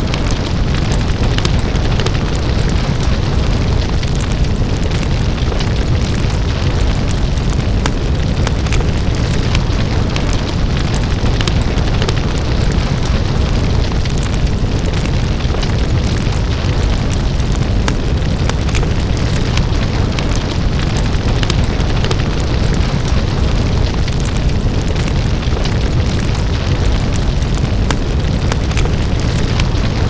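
Open flames burning steadily: a dense, constant rush of fire, heavy in the low end, with many small crackles and pops.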